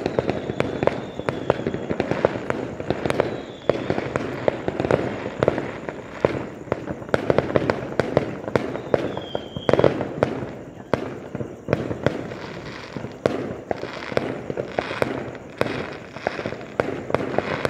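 Aerial fireworks going off without a break: a dense, rapid run of bangs and crackling pops, with a few brief whistles among them.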